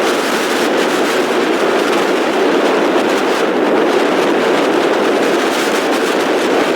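Steady roar of hurricane-force wind and storm surf on the beach, a continuous rushing noise with wind buffeting the microphone.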